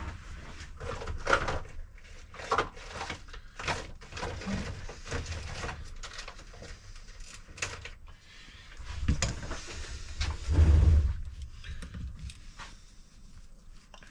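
Scraping, rubbing and small clicks as dried-out thermal paste is cleaned off a laptop's CPU and heatsink, in irregular strokes, with a longer, louder stretch of rubbing about nine to eleven seconds in.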